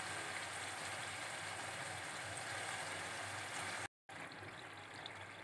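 Raw prawns with spices sizzling and bubbling steadily in oil in a metal kadai on low heat as they give up their water. The sound cuts out for a moment about four seconds in and comes back slightly quieter.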